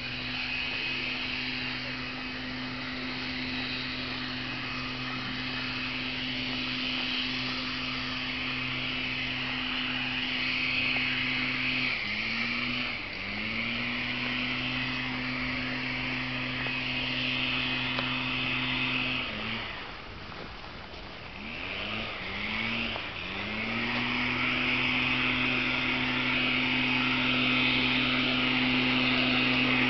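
Petrol leaf blower running at high throttle: a steady engine drone with a high, airy rush of air over it. About twelve seconds in the throttle eases off briefly and comes back. Later it drops for a few seconds, blips three times, then returns to full and grows louder near the end.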